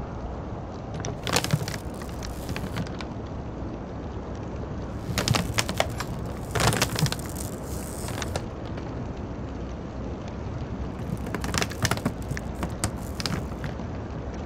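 Three spells of crackling, dense clicks and snaps, over a steady low rumble.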